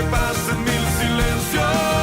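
Recorded pop-rock song playing an instrumental passage with no sung words, over a steady bass; a new note comes in and is held near the end.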